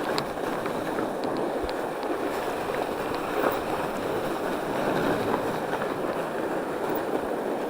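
Norco Bigfoot 1S fat bike rolling downhill on a packed snow trail: a steady rushing noise of tyres on snow and wind over the microphone, with a few small ticks.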